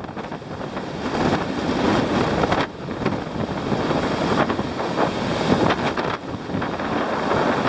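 Wind buffeting the microphone: a loud, rough rushing noise that swells and dips in uneven gusts.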